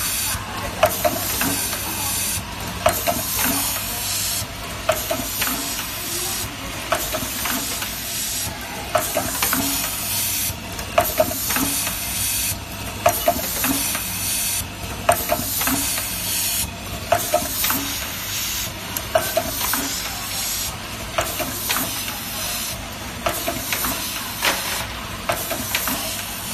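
Automatic cap feeding and labeling machine running: a steady hiss with sharp clicks and short tones repeating about every two seconds as the turntable carries caps through.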